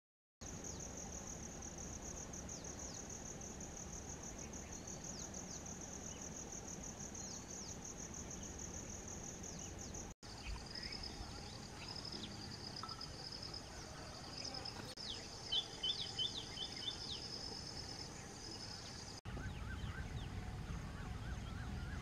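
Steady high-pitched insect trill with faint scattered bird chirps. The trill shifts in pitch twice where the recording cuts, and a quick run of about five short bird notes comes a little past the middle.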